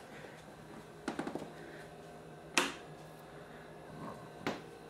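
A few sharp clicks and taps: a quick cluster of light taps about a second in, one loud sharp click about two and a half seconds in, and another click near the end.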